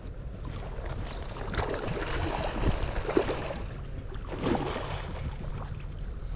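Water sloshing and splashing, with wind rumbling on the microphone.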